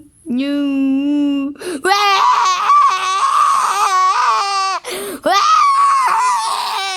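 A voice crying and wailing in three long drawn-out cries: the first lower and steady, the next two much higher and wavering.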